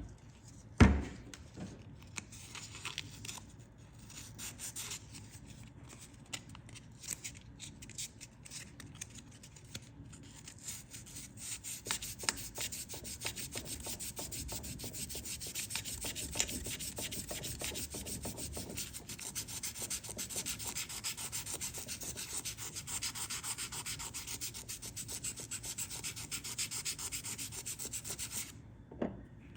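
Hand wet-sanding with 800-grit wet/dry sandpaper and soapy water over a JB Weld epoxy repair on an outboard propeller shaft's seal surface, feathering the epoxy smooth. The paper makes a fine rubbing that grows louder and more even after about twelve seconds, pausing briefly near the end. There is a single knock about a second in.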